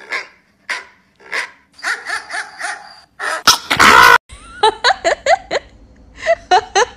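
A chihuahua's short growls and barks, then a loud burst about halfway, followed by a woman's high-pitched laughter in quick runs.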